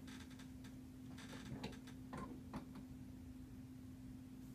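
A few faint ticks and short creaks from an upholstered recliner chair as the person lying in it shifts slightly, over a steady low hum.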